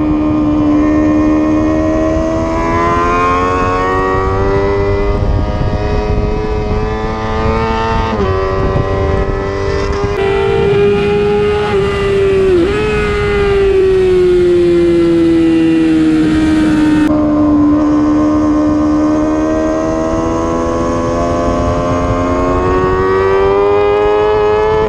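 Sportbike engine running hard on a racetrack, heard from on board. Its pitch climbs and falls in long sweeps, with a few sudden dips at gear changes, over a steady rush of wind.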